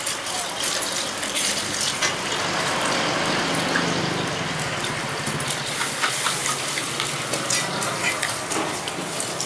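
Spoon and fork clinking and scraping on a plate in short clicks, over a steady hiss of background noise.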